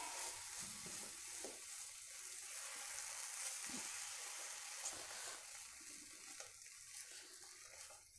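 A ground masala paste frying faintly in hot oil in a pan on high flame, stirred with a spatula: a steady soft sizzle with occasional light scrapes. The sizzle thins out near the end.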